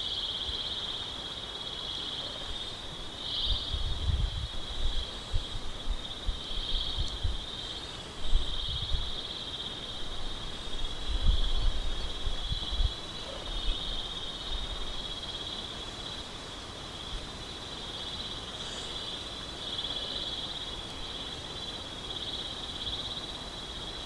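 Common grasshopper warbler (Locustella naevia) reeling: one unbroken, high, insect-like trill, seriously loud, held without a pause until it stops at the end. Low buffeting rumbles of wind on the microphone come and go, strongest in the first half.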